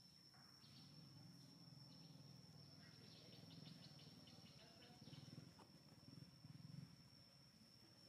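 Near silence: faint forest ambience with a thin, steady high-pitched insect drone.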